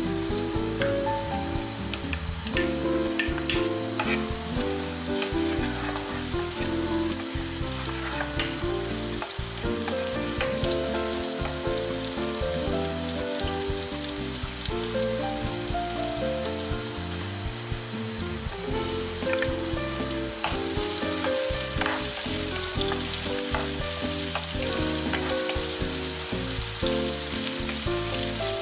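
Garlic, ginger and chopped onion sizzling in hot oil in a non-stick pot, stirred with a wooden spoon that scrapes and taps now and then. The sizzle grows louder about two-thirds in, once the onion is in the pot.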